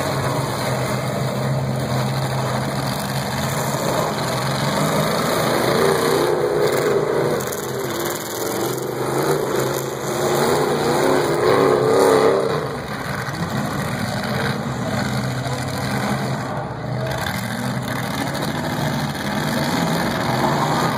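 Several demolition derby cars' engines running and revving together, with louder surges about six and eleven to twelve seconds in.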